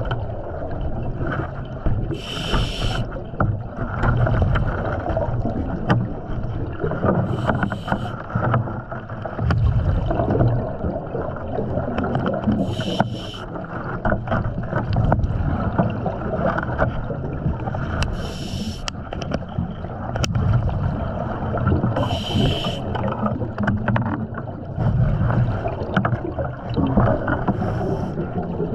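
Underwater arc torch crackling and sputtering steadily as it burns at the hatch frame. A short high hiss from the diver's breathing regulator comes about every five seconds.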